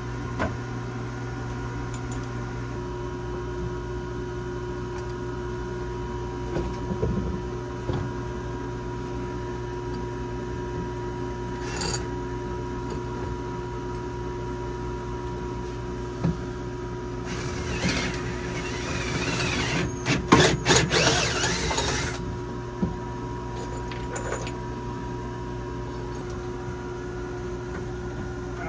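A steady mechanical hum runs throughout. About three-quarters of the way through, a power drill bores a hole for several seconds, ending in a few sharp knocks as the bit cuts through.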